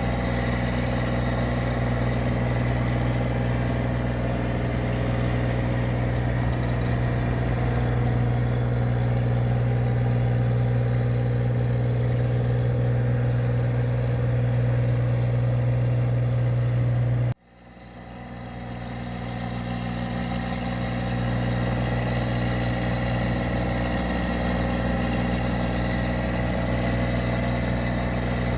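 Engine of a paddy (rice) machine running steadily with a strong low hum. About two-thirds of the way through, the sound cuts out abruptly, then fades back in over a few seconds to the same steady running.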